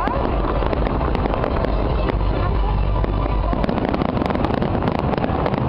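Fireworks display: a dense barrage of overlapping bangs and crackles from many shells bursting at once, over a deep rumble that eases about three and a half seconds in.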